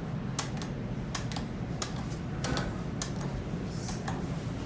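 Schindler traction elevator cab travelling up: a steady low hum with irregular light clicks and ticks over it.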